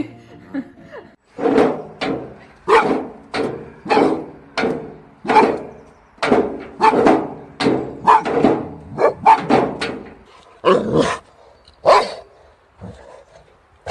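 A dog barking over and over, about two barks a second for roughly ten seconds, then stopping near the end.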